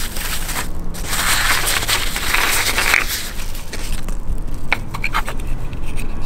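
White packing wrap crinkling and tearing as a wheel center cap is unwrapped by hand. Then a few light clicks and taps as the plastic cap is set down on the workbench and picked up.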